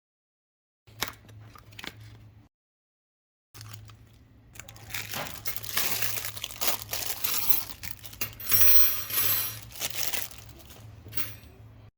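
Plastic packaging crinkling and rustling as it is handled and torn open, loudest a little after the middle, with two short dead silences in the first few seconds where the footage is cut.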